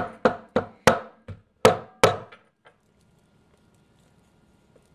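Wooden meat-tenderizer mallet pounding shiitake mushroom stems on a wooden board: about eight quick, irregular thuds, stopping about two and a half seconds in.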